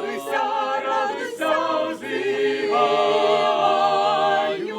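A choir singing a cappella in slow, sustained chords, each held for a second or two before moving to the next.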